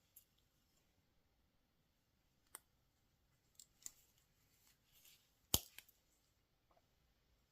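Pocket knives being handled: a few sharp, isolated metallic clicks with light rustling between them, the loudest click about five and a half seconds in.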